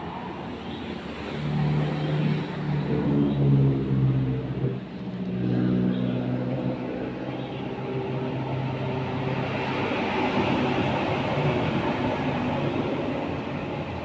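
A motor vehicle engine passing close by. Its pitched hum is loudest a few seconds in, then runs on steadily and gives way to a broader rushing noise about ten seconds in.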